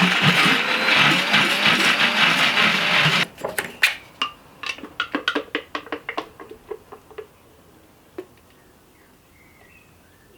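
Electric kitchen blender running on the Caesar sauce, then switched off abruptly about three seconds in, followed by a quick run of light clicks and taps that die away after a few seconds.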